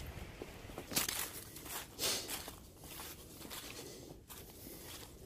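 Footsteps through fallen leaf litter on a woodland floor: a few rustling steps, clearest about one and two seconds in.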